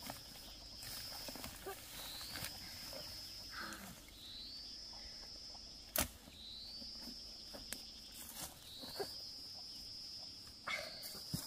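A high, thin animal call repeated about every two seconds, each one rising briefly and then held steady for over a second. A few sharp knocks of a digging tool striking the soil, the loudest about halfway through.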